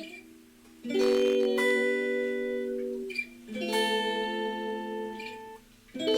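Acoustic guitar playing a Spanish-style blues in A minor: chords struck about a second in, midway and again at the very end, each left to ring and fade, with short pauses between.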